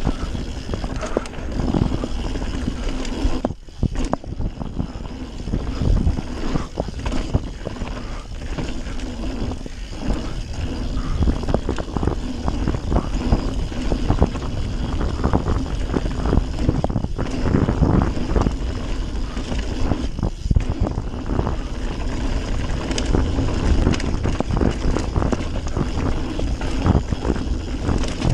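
Radon Swoop 170 full-suspension mountain bike ridden fast downhill on a dirt trail: tyres rolling over dirt and wind on the camera microphone, with frequent knocks and rattles from the bike over bumps. There is a brief lull about three and a half seconds in.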